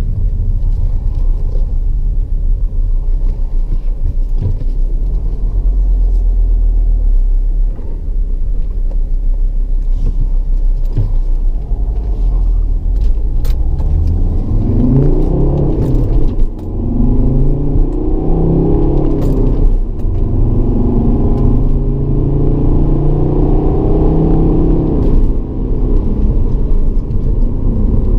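Volvo C70 D5's five-cylinder turbodiesel driving along. A low rumble fills roughly the first half. Then the engine note rises through two gears, dropping at each shift, and settles into a steady note.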